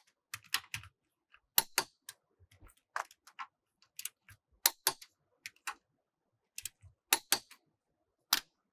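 Torque wrench on a 17 mm socket clicking as the wheel's lug bolts are torqued to 135 Nm in a cross pattern. The clicks are short and sharp, come at irregular intervals and are often in close pairs.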